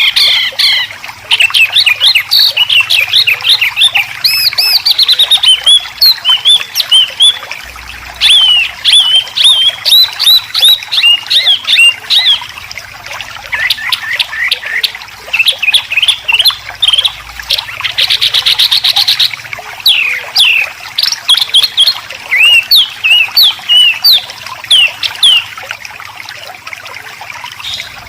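White-rumped shama and greater green leafbird song: fast runs of short sweeping whistles and chattering notes, broken by short pauses. Around two-thirds through comes a harsh rasping burst of about a second, the kind of 'besetan' call used for training cage birds.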